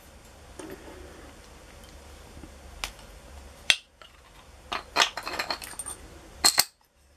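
Small metal parts being handled and knocked together: a few separate sharp clicks, then a short cluster of light metallic rattles and clinks, and a final double clink with a brief high ring near the end.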